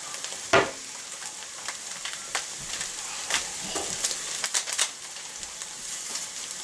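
Ground meat sizzling in a pot on the stove, a steady high hiss: the sign that the meat's liquid has mostly cooked out. A few sharp crinkles and clicks from a foil seasoning packet being handled and torn open, the loudest about half a second in and a cluster of them near the end.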